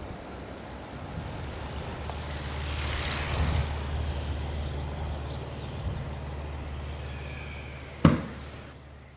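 A motor vehicle engine running steadily, with a rushing swell around three seconds in and a single sharp knock about eight seconds in.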